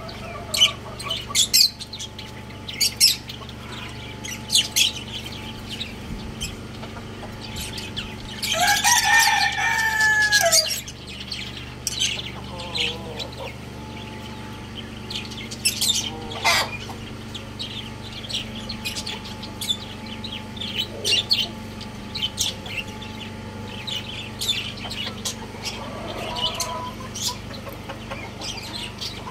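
A young rooster crows once, a loud call of about two seconds a third of the way in, with a fainter call near the end. Small caged birds chirp sharply and often throughout, over a steady low hum.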